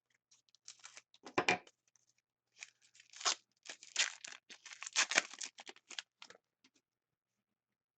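Trading card pack wrapper being torn open and handled: a string of short tearing and crinkling sounds that stops about six and a half seconds in.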